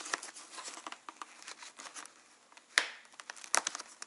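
Rustling and crinkling of a snowmobile helmet's fabric-covered foam chin pad and liner being handled and pressed into place. A sharp click comes a little under three seconds in, with a few lighter clicks after it, as the pad's press-stud snaps are pushed home.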